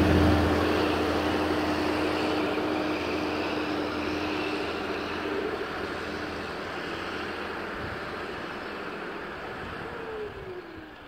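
Steyr 8130 tractor's six-cylinder diesel, fitted with a P-type in-line injection pump, pulling away under power, its steady engine note fading as the tractor drives off.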